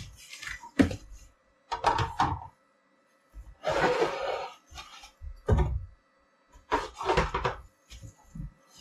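Unboxing a cardboard box: irregular bumps and knocks against the cardboard, with rustling of foam and plastic packing as parts are lifted out. The longest rustle comes about four seconds in.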